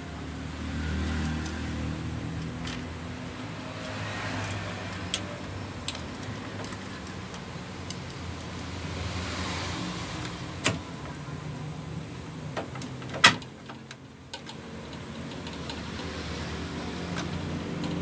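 Sharp metallic clicks and taps of a screwdriver and fingers working inside an open microwave oven's chassis while the shorted high-voltage capacitor is swapped for a new one. The loudest click comes about thirteen seconds in, over a steady low engine-like rumble.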